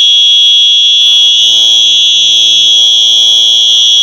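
Simplex fire alarm sounding a loud, continuous high-pitched tone, steady and unbroken.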